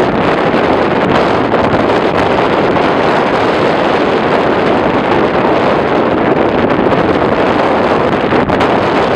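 Wind blowing steadily across the microphone, a loud even rush with no other sound standing out.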